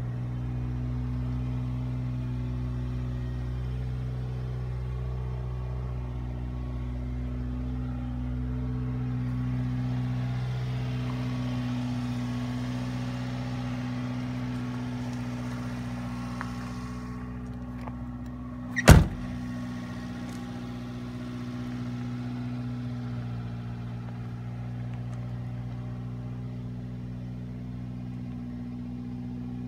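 1996 Subaru Sambar kei truck's small four-cylinder engine idling steadily. About two-thirds of the way in comes a single loud slam, the truck's cab door being shut.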